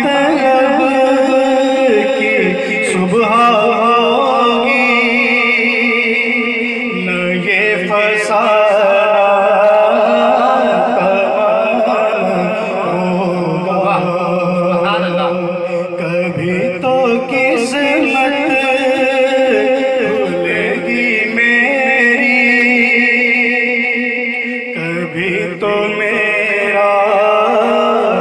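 A man singing a naat, an Urdu devotional song in praise of the Prophet, into a microphone, with long, wavering held notes.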